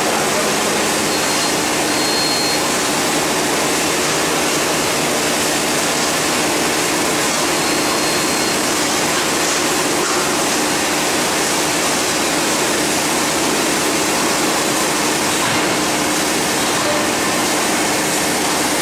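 Granule filling and packaging line running: conveyors and gear motors make a steady, even rushing noise with a faint low hum.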